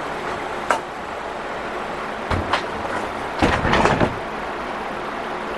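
Metal parts of a truck bed slide clanking as it is put back together: a sharp click, two knocks, then a louder run of clanks and rattles about three and a half seconds in, over a steady background hum.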